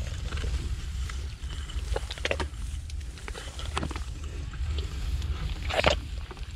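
Rice leaves swishing and rustling as someone pushes through the plants of a rice paddy, with a louder brush of leaves near the end, over a steady low rumble.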